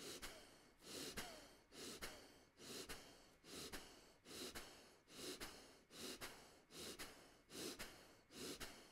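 Faint, steady rhythm of short, forceful breaths through the nose or mouth, a little more than one a second. The breaths keep time with the belly being pumped in and out on all fours.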